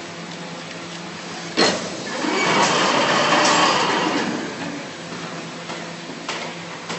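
Cardboard-tube cutting machine running with a steady motor hum. A sharp click comes about a second and a half in, then a louder rasping swell of about two seconds as the tube is cut, and a few clicks near the end.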